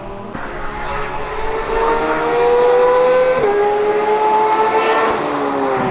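Porsche 991.2 GT3 RS's naturally aspirated flat-six accelerating hard, its pitch rising. It drops sharply on an upshift about three and a half seconds in, then climbs again.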